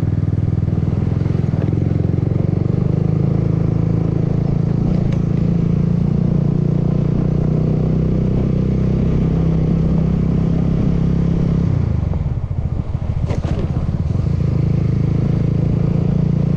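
Honda scooter engine running steadily while being ridden over a dirt road. The engine note drops about twelve seconds in, then picks up again, with a couple of short rattles.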